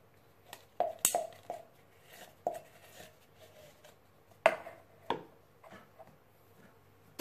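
Metal spoon stirring melted chocolate in a cut-open metal drink can, knocking and scraping against its sides in irregular clinks, the loudest about halfway through.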